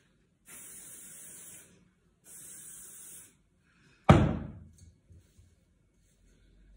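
Aerosol can of hair product sprayed in two bursts of about a second each, a short gap between them. About four seconds in comes a sharp knock, the loudest sound.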